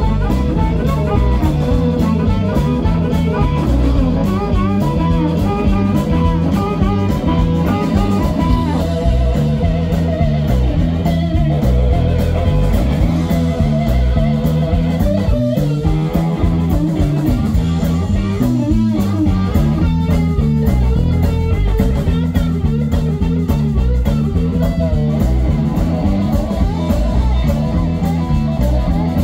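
Live blues-rock band playing an instrumental passage: a Les Paul-style electric guitar takes the lead over drums and a rolling, repeating bass line.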